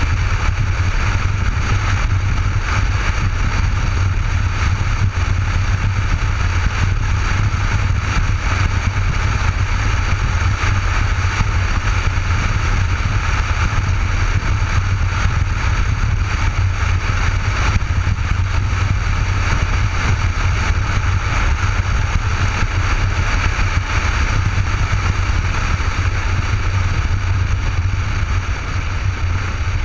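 Cruiser motorcycle riding at steady highway speed: a constant low engine drone under loud wind and road rush, heard from a helmet-mounted GoPro. The level eases slightly near the end.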